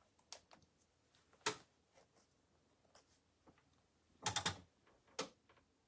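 A few light, scattered clicks and taps, with a quick cluster of them about four seconds in.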